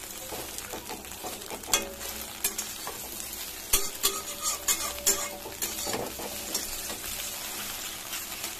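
Broken pieces of egg omelette sizzling in oil in a kadai while a metal spatula stirs and scrapes them, with sharp clinks of the spatula against the pan, the loudest between about two and six seconds in.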